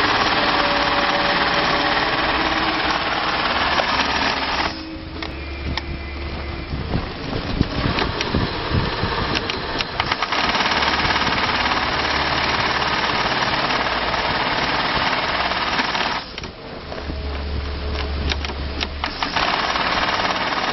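YOUTIAN 81300A1HL double-needle, four-thread chain-stitch and overlock bulk-bag sewing machine running at speed, stitching webbing onto the bag fabric. The stitching stops twice for a few seconds, about five seconds in and again about sixteen seconds in. During those stops a lower hum and scattered clicks continue, then the machine runs at full speed again.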